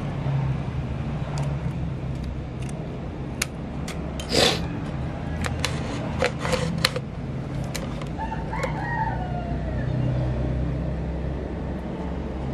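A rooster crows once, about eight and a half seconds in, over a steady low hum. A brief hiss and several sharp clicks and taps come earlier, in the middle.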